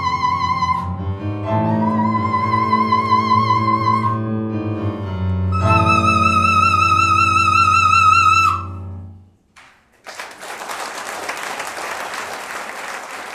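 Operatic soprano singing with piano accompaniment, climbing to a long high note with wide vibrato that cuts off about eight seconds in. About a second later, audience applause.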